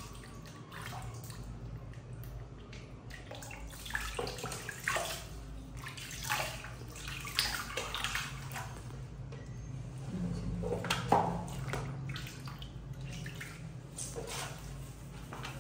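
Water splashing and trickling in a small plastic basin as hands scoop and pour water over a baby monkey being bathed, in irregular splashes, over a low steady hum.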